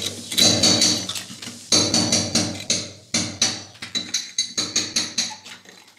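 Hammer blows chipping away at a brick wall around a pipe fitting: a quick, irregular series of sharp strikes with a short ringing after each, and a brief pause about three seconds in. The wall is being broken open so the pipe can be raised a little.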